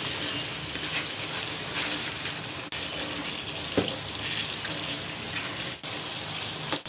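Chicken masala gravy sizzling in a pan as it is sautéed and stirred with a spatula, with one sharp knock of the spatula against the pan near the middle.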